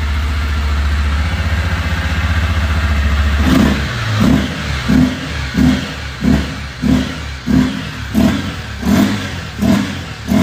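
Honda Sahara 300 single-cylinder motorcycle engine running, the engine still cold. It idles steadily, then from about three and a half seconds in it is blipped over and over, about one and a half revs a second.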